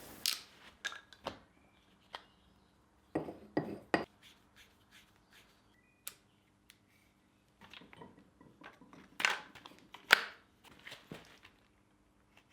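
Scattered clicks, taps and light knocks of hard objects being handled, likely preparation for applying sealant. They come in small clusters, with the loudest knocks about two-thirds of the way through, over a faint steady hum.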